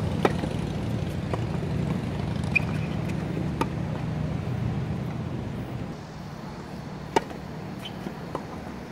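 Tennis rally: a serve struck with a sharp pop of racket strings on the ball about a quarter second in, then further crisp racket hits through the exchange, the loudest near seven seconds. A steady low rumble runs under the first six seconds and then drops away.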